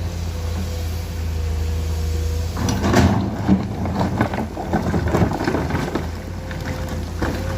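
Komatsu PC210 hydraulic excavator's diesel engine running steadily with a faint whine, then loose rock clattering and knocking for a few seconds from about two and a half seconds in as the bucket works the rock.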